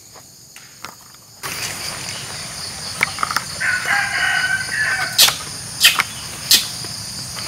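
Insects buzzing steadily in several high, even tones, coming in suddenly about a second and a half in. A rooster crows once in the middle, and three sharp snaps follow near the end, well under a second apart.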